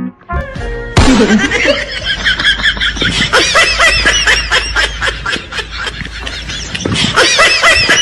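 Laughter over music, cutting in suddenly about a second in: many overlapping high-pitched laughs.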